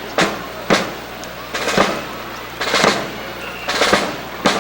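Rifle drill in unison: sharp slaps and knocks of rifles being handled by a drill team, about one a second, some coming as quick double or triple strikes, over faint crowd background.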